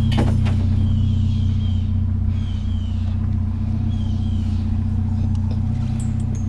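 Vehicle engine idling with a steady low hum. A few faint short high chirps come and go over it.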